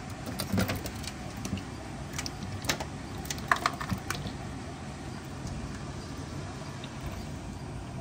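Scattered light clicks and taps on a stainless steel sink and its metal drain strainer basket as an African bullfrog lunges at an American crayfish. The taps cluster in the first half and then thin out over a steady low hum.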